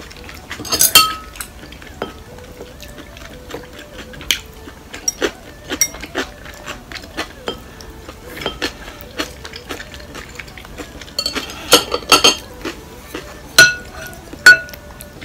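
A wooden spoon and chopsticks clink and scrape against a ceramic bowl of porridge during eating. There are scattered taps throughout, a flurry of clinks about a second in and again a few seconds before the end, and two sharp ringing clinks near the end.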